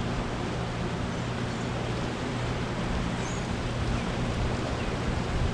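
Fast, churning river water rushing below a dam, a steady wash of noise with a low hum underneath.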